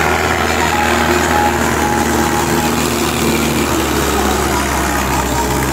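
Mahindra Arjun 605 tractor's diesel engine running steadily under load as it hauls a trailer loaded with sugarcane.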